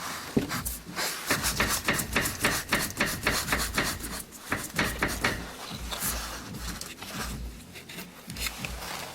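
Citroen C4 windscreen washer fluid reservoir knocking against its mounting, a quick run of light hollow knocks with rubbing, about four to five a second, thinning out after about five seconds. This knock is the one often taken for a suspension knock.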